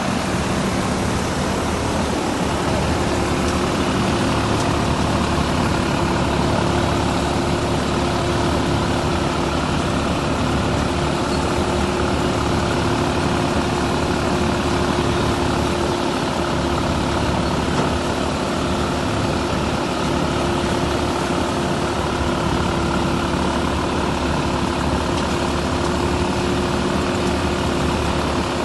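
Çetinkayalar NCK-04 TD pickup thresher running at a steady speed: a continuous, even mechanical drone with several steady hum tones.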